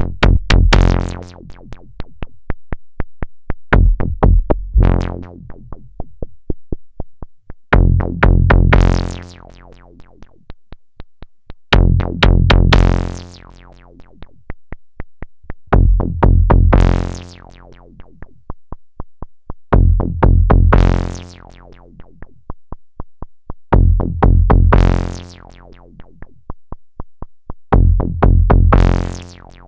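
Modular synthesizer patch played through the ST Modular EFI filter: a loud, bass-heavy note every four seconds, its tone sweeping from bright to dull as it dies away, over a fast, steady run of sharp clicks. The filter cutoff is turned by hand, so each note comes out brighter or darker than the last.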